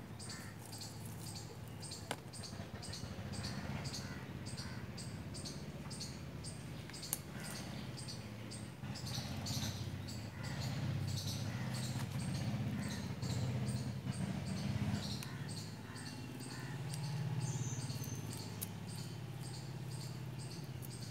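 Outdoor ambience of small animals chirping: short, high chirps repeating evenly two or three times a second, over a steady low rumble.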